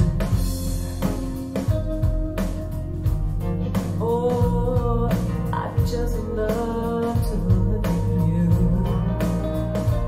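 Rock music played through a pair of Wharfedale Diamond 240 floor-standing speakers and picked up by a microphone in the room: guitar and a regular drum beat, with a sung vocal line.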